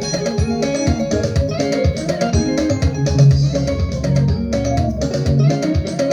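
Praise music with plucked guitar, bass and a steady drum beat.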